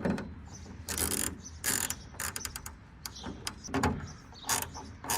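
Irregular clicks and short rattles of hand-fastening work as a car's interior door panel is fitted and its parts put on.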